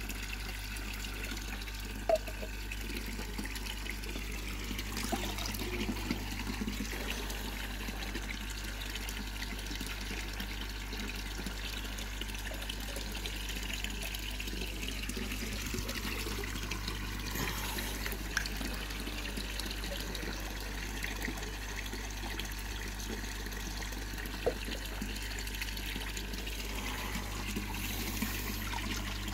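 Steady running and splashing water of a koi pond's circulation, over a constant low hum, with a few small sharp clicks.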